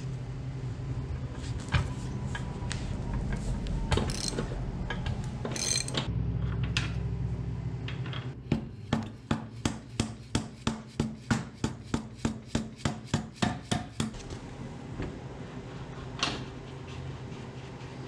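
A mallet knocking a motorcycle's rear axle out of the wheel hub: about sixteen sharp blows in a steady run, roughly three a second, starting about halfway through. Before the blows come scattered clinks of the socket and the axle nut coming off. A low steady hum runs underneath throughout.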